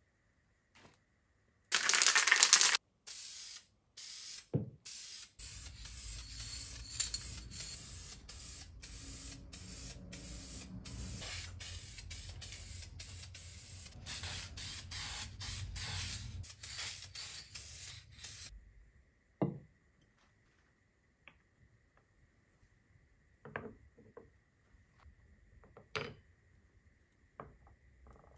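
Aerosol spray paint can hissing: one long loud burst, then a long run of short bursts, about one to two a second, as small parts are sprayed. After the spraying stops come a few light clicks and taps.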